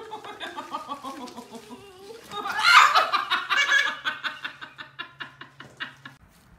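A person laughing: a falling run of giggles, then a loud burst of laughter about two seconds in that breaks into quick, even pulses and trails off near the end.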